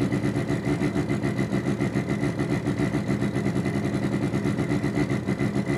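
Synthetic engine idle from function generators in sweep mode, played through a small speaker: a low buzzing tone throbbing several times a second, imitating a motor idling slightly unevenly.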